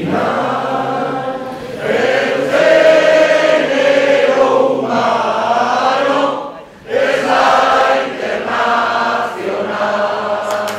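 Many voices singing together in chorus: a slow song in long held lines, with brief pauses between phrases.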